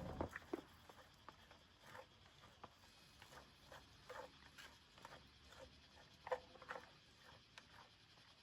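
Near silence with faint, irregular light taps and rustles, a little stronger just after the start and again about six seconds in.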